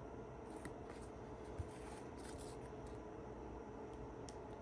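Faint rustling and sliding of trading cards handled one by one, with a couple of light taps, over a faint steady hum.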